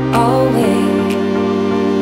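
Background music: a singer's held note ends about half a second in, leaving a steady chord accompaniment with a soft beat about once a second.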